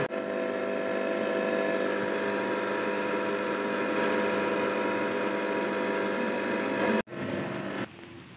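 A steady mechanical hum made of several held tones, which cuts off abruptly about seven seconds in.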